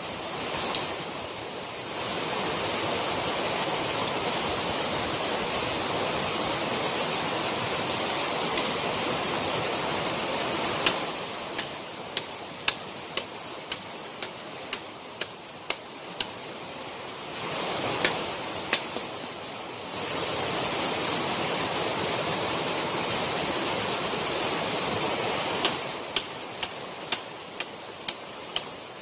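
Waterfall rushing steadily. Twice the rush drops lower and a run of sharp, evenly spaced knocks or taps sounds over it, about two a second; these are the loudest sounds.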